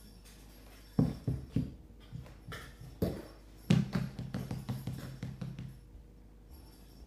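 A run of sharp knocks and thumps from kittens playing close by, then a couple of seconds of scuffing and rubbing, with more thumps, as a kitten's body brushes against the camera.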